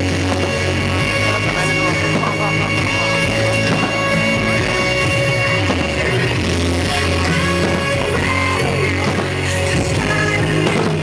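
Rock-style music with a steady bass line playing continuously.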